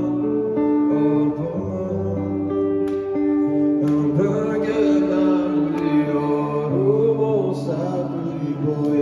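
A man singing into a microphone with an acoustic guitar and band backing, in a live soundcheck run-through; several long held notes sound together.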